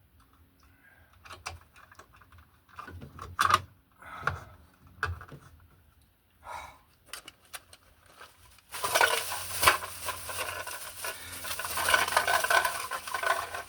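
Handling noises: scattered small clicks and clinks, then from about nine seconds in a continuous crinkling, rustling noise.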